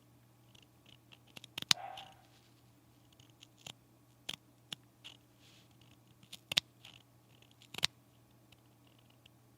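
Sewing tools and fabric being handled at close range: a handful of sharp clicks and snips spaced irregularly, with a brief rustle about two seconds in, over a faint steady low hum.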